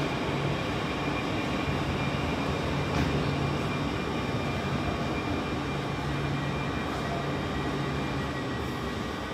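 Steady hum and whine of a standing double-deck Transilien electric train's onboard equipment, heard in an underground station with its echoing hall noise. A single click about three seconds in.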